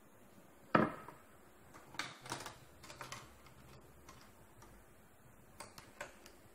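A screwdriver set down on a tabletop with one sharp clack, followed by bursts of light clicking and rattling as metal and plastic parts at the end of a copier fuser unit are handled.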